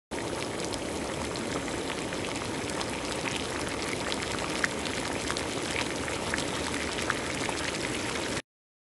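Pot of chicken adobo with potatoes simmering in its soy-vinegar sauce: a steady bubbling with many small pops. It cuts off abruptly shortly before the end.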